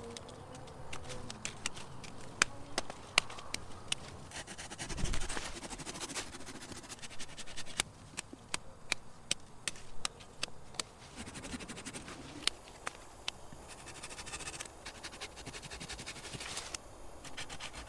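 Hand bypass pruners cutting shoots and small branches at the base of a grapefruit tree: a scatter of sharp snips and clicks at irregular intervals.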